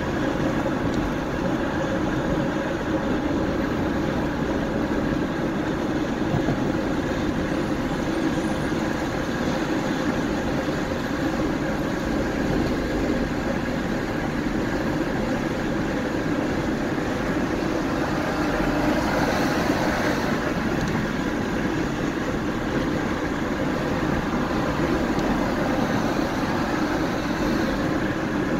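Car driving at a steady pace: continuous road and engine noise with no sudden events.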